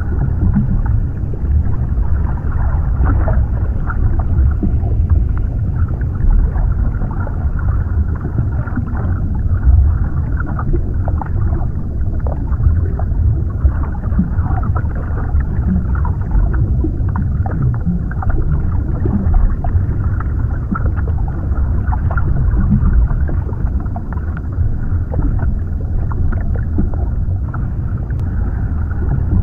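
Underwater ambience: a steady muffled low rumble of water with scattered small bubbling clicks and ticks.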